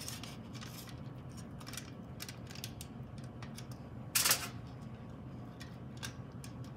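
Light clicks and taps of bacon-wrapped scallop skewers being handled and laid out on a pan, with one louder, brief clatter about four seconds in, over a steady low hum.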